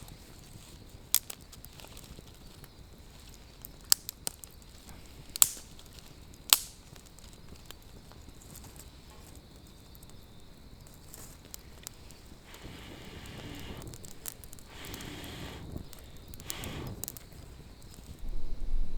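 Wood campfire crackling, with a few sharp, isolated pops in the first seven seconds and several seconds of louder hissing in the second half.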